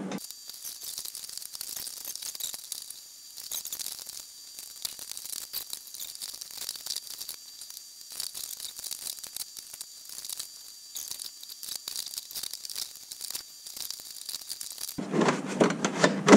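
Scraping, rustling and small clicks of a stiff plastic mud shield being pushed and bent into place against a UTV's inner fender, over a steady hiss. Near the end it gets louder as the panel is forced up into the corner.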